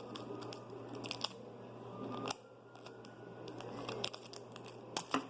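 Scissors snipping off excess paper and tape, several sharp cuts with a cluster near the end, amid paper crinkling.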